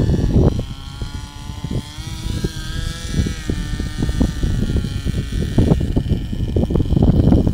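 Radio-controlled helicopter's motor and rotor whine, shifting in pitch as it flies low, under heavy wind buffeting on the microphone. The whine drops away about six seconds in as the helicopter comes down, and the wind rumble grows louder near the end.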